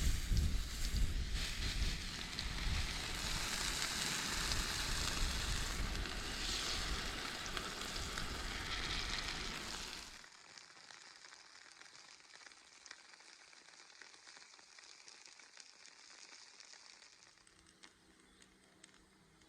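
Potato pancakes (draniki) frying in oil in a pan over a campfire, with a loud, dense sizzle. About halfway through the sizzle drops abruptly to a faint one with occasional small pops.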